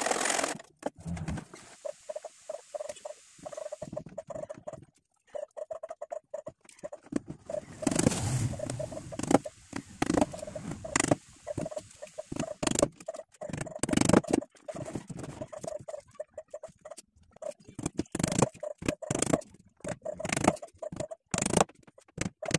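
Hand saw cutting a thin wooden strip in a miter box briefly at the start, then a claw hammer driving small nails into wooden strips on a plywood speaker cabinet: irregular sharp taps and knocks, coming thick and fast in the second half.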